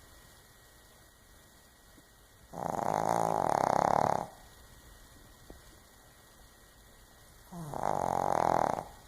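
Snoring: two snores, each about a second and a half long and roughly five seconds apart, with quiet breathing pauses between them.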